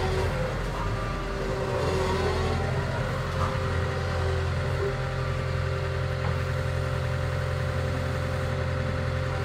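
Liebherr A 914 Compact wheeled excavator's diesel engine running steadily under a constant low hum, with a hydraulic whine from the boom and bucket working that shifts in pitch in the first couple of seconds, then holds steady.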